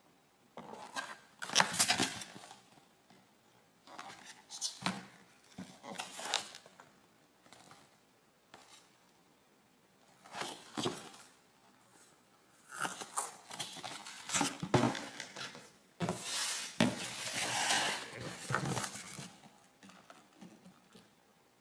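Cardboard frozen-pizza boxes being handled, turned and set against a counter: several separate bouts of scraping and rustling with short quiet gaps between them.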